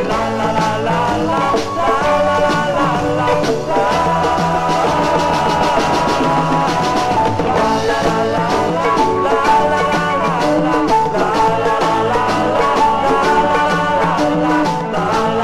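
Music: a 1967 pop single played from a vinyl record, a full band playing with a steady beat.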